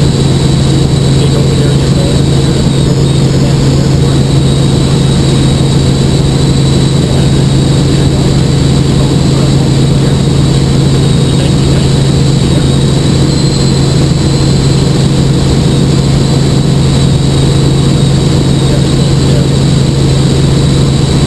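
Helicopter cabin noise in steady flight: the engine and rotor drone loudly and evenly, with a thin steady high whine above.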